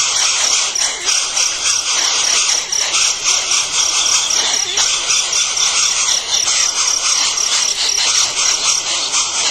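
Dense, continuous insect chorus of cricket-like chirring, with a high, rapidly pulsing note repeating several times a second.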